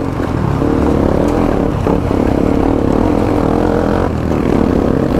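Motorcycle engine running steadily under way, its drone holding a nearly even pitch.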